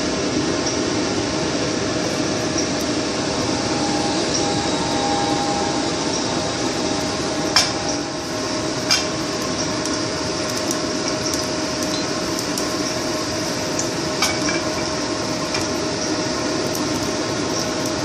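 Kitchen exhaust fan running with a steady whir and hum, quite noisy. Over it come three sharp clinks of a utensil against a pan or dish: about seven and a half seconds in, again a second or so later, and once more near fourteen seconds.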